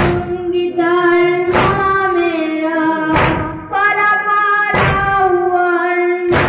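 A boy chanting a noha, a Shia lament, through a microphone, holding long sung notes. A sharp slap lands about every second and a half in time with the chant, the beat of mourners' matam (chest-beating).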